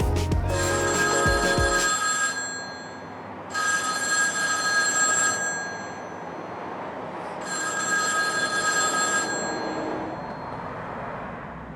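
Payphone ringing: three rings of about two seconds each, with pauses of about two seconds between them.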